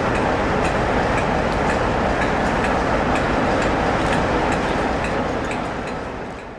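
British Rail Class 47 diesel locomotive's Sulzer V12 engine running at a steady note, with light clicks scattered through it. The sound fades away near the end.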